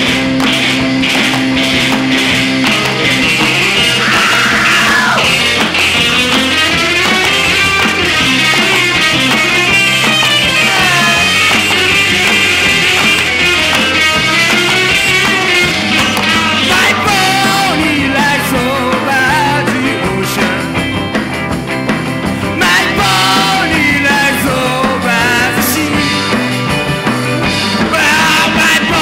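Rock and roll band recording with two electric guitars, electric bass and drums playing at full volume, with a wavering, pitch-bending lead line over the top.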